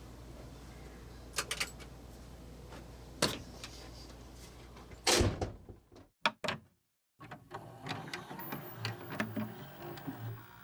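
A few sharp clicks and knocks over a low steady hum. The hum stops about five seconds in, after a louder knock, and a second of dead silence follows before light scattered clicking.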